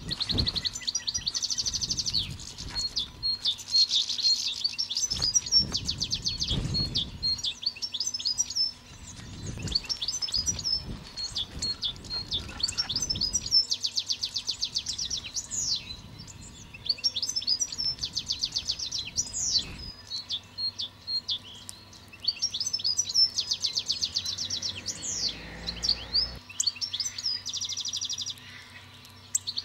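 Small songbirds singing and chirping in repeated phrases of rapid high trills and quick downward-sweeping notes, with a few low rumbles about six and ten seconds in.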